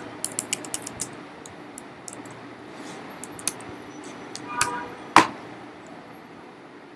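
Computer keyboard typing: a quick run of key clicks, then scattered taps, and one louder key or mouse click about five seconds in.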